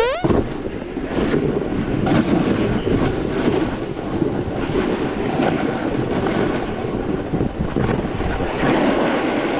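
Snowboard sliding and scraping over packed snow, a steady rough hiss and rumble with small surges as the edges bite, mixed with wind buffeting the camera microphone.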